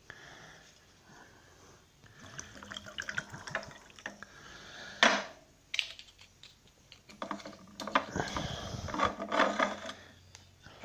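Rum and cola being poured into a glass, in two long pours, with a sharp knock about five seconds in.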